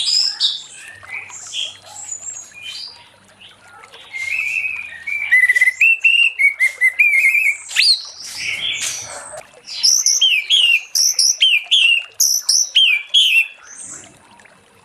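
Orange-headed thrush singing a long, varied song of quick whistled phrases and chattering notes. Louder, denser run of phrases through the middle that tapers off near the end.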